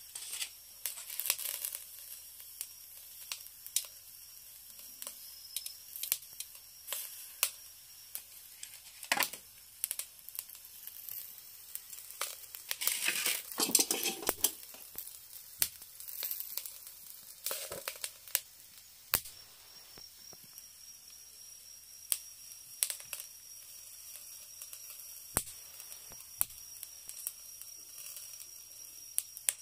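Beef omasum grilling on a wire net over a charcoal shichirin: irregular sharp pops and crackles, with a louder stretch of hiss about halfway.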